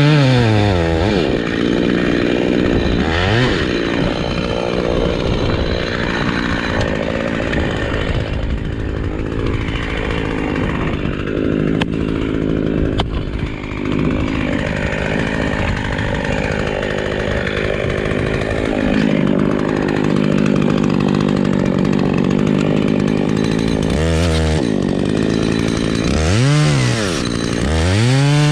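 Two-stroke chainsaw cutting wood: it revs up and falls back in quick bursts at the start and again near the end, and holds a steady, lower working note through the long cut in between.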